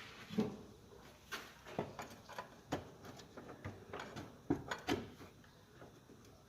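About ten scattered light knocks and clicks over several seconds, dying away near the end: metal gearbox parts and tools being handled and set down on a workbench.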